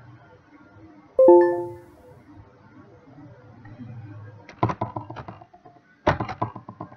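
A single chime about a second in, rung once and fading within a second: the trading platform's alert as a binary-option trade expires in profit. It is followed by two quick bursts of clicks, keystrokes typing a new trade amount.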